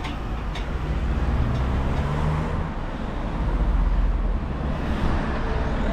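Wind buffeting the microphone: a low, unsteady rumble that swells about four seconds in and eases off.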